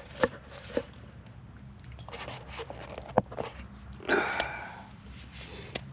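Handling and movement noise: a few sharp clicks and taps, and a louder rustling scrape of fabric or gear about four seconds in.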